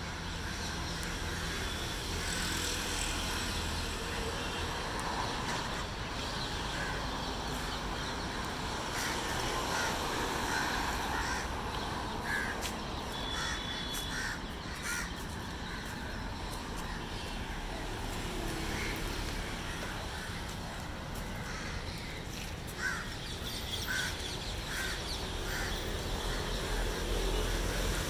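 Crows cawing in two runs of short calls, one a little before the middle and one near the end, over a steady low background rumble.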